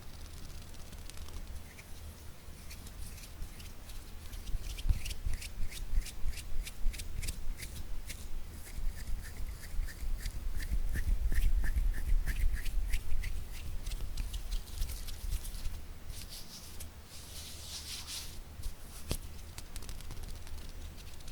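Hands making close-up ASMR sounds: a quick run of light fingertip taps, several a second, with a faint ringing pitch that dips and rises again, then a stretch of skin rubbing and swishing a few seconds later.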